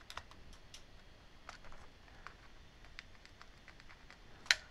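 Faint scratching and small clicks of a flathead screwdriver tip scraping leftover rubber off the metal plate under a missing key on a white MacBook keyboard, with one sharper click about four and a half seconds in.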